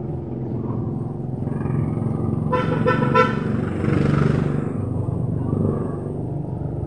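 Street traffic running steadily, with a vehicle horn giving a brief toot, under a second long, about two and a half seconds in. It is followed by the louder rush of a vehicle going by.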